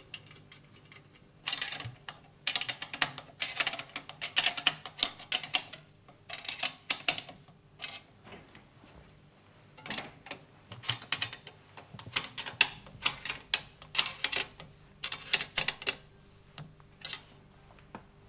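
Bursts of rapid metallic clicking and clinking from hand tools working on a stainless-steel Grundfos SQF submersible pump held in a vise. The clicking comes in runs of a second or two, with short pauses between them, starting about a second and a half in and stopping a couple of seconds before the end.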